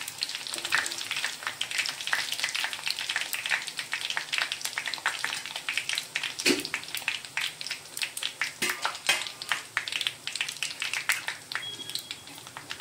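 A nest of spiced gram-flour sev (shev) deep-frying in hot oil, its second side cooking after being flipped: a dense, steady crackle and sizzle of bubbling oil that thins a little toward the end.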